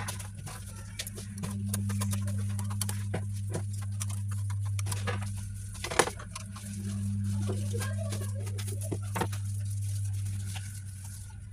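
Scattered light clicks and knocks over a steady low hum, with one sharper click about six seconds in.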